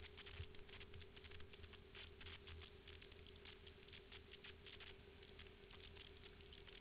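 Dirt bike engine running under way, heard faintly as a steady, evenly pulsing drone, with a rapid irregular clicking rattle over it.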